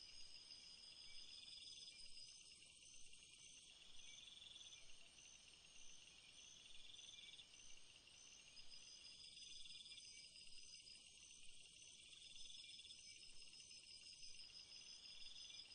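Faint chorus of night insects trilling steadily at a high pitch, with one chirring call swelling about every two seconds and a faster pulsing call above it.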